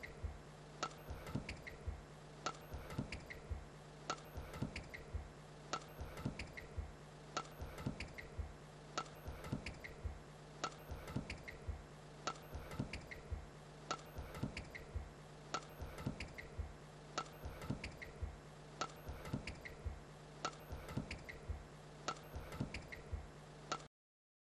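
Faint, regular ticking, about two to three clicks a second, over a steady low hum; it cuts off suddenly near the end.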